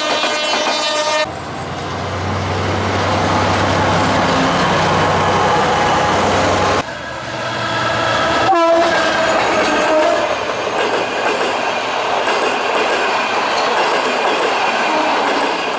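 Passenger trains passing close by at speed: a locomotive horn chord sounds at the start, then the loud, noisy rush and rattle of coaches going past. The sound cuts abruptly to another passing train about a second in and again about seven seconds in.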